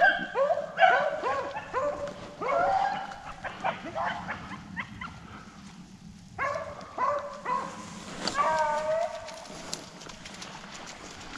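A pack of rabbit hounds giving tongue on a rabbit track: short, quick barks one after another. They break off briefly about halfway and start again, with one longer drawn-out call before they fade near the end.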